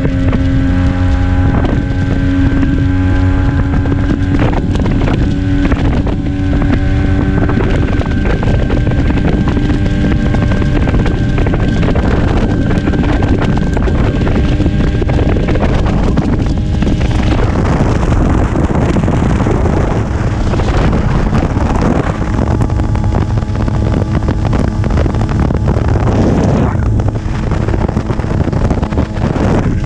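Vespa PX80 two-stroke single-cylinder engine, tuned with a DR 136 cylinder kit, running steadily at cruising speed under way, with wind buffeting the microphone. From about halfway the wind noise grows and the engine tone becomes less distinct.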